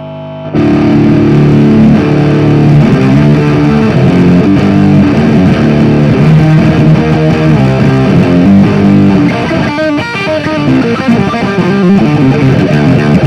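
Electric guitar played loud through a Soldano SLO 30W Mini valve amp head with an overdrive pedal stacked into its front input, both the amp's gain and the pedal's overdrive set high for a heavily distorted tone. A held note rings at the start, then about half a second in a fast run of chords and riffs begins.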